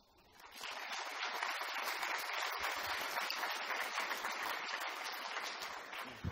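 Audience applauding: steady clapping that builds about half a second in and dies away near the end.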